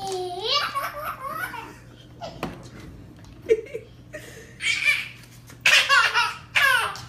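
A baby laughing: high, gliding vocal sounds at the start, then several loud bursts of belly laughter in the second half.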